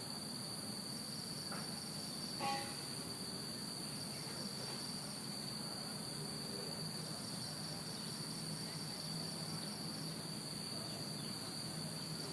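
Steady chorus of insects in two continuous high tones, with one short pitched sound about two and a half seconds in.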